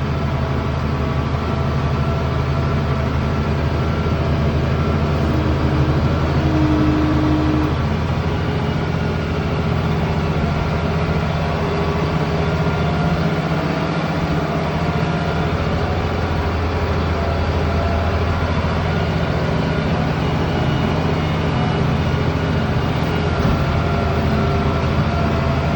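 International Harvester 1566 tractor's six-cylinder turbo diesel running steadily while pulling a field cultivator, a deep, even engine drone.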